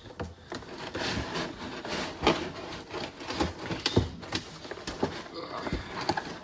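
Cardboard box and packaging rustling and scraping as a chainsaw is worked out of it by hand, with a string of sharp knocks and bumps, the loudest about two and four seconds in.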